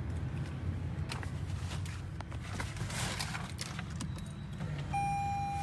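A Lexus SUV's electronic cabin chime: one steady held beep starting near the end. Underneath are a low steady rumble and a few light clicks as hands work the dashboard controls.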